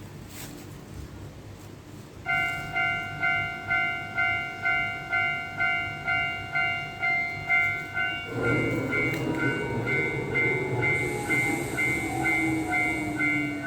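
Railroad crossing bell dinging steadily about three times a second, then a train rumbling past about eight seconds in, its horn sounding and dropping in pitch as it goes by.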